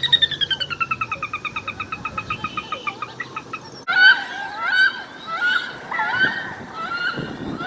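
Animal calls: a fast trill of repeated notes falling in pitch for about four seconds, then, after a sudden break, a run of short repeated chirping calls.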